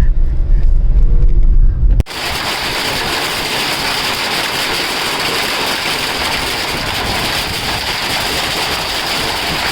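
A loud low rumble cuts off suddenly about two seconds in. A steady, even hiss of a storm downpour follows, with rain and hail falling.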